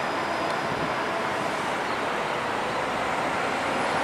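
Toronto Flexity Outlook low-floor streetcar pulling slowly out of a tunnel on steel rails: a steady running sound with a faint high whine, mixed with city traffic noise.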